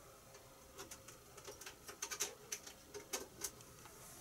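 A run of faint, irregular small clicks and light taps, about a dozen over two and a half seconds: the handling noise of plugging a USB thumb drive into a computer.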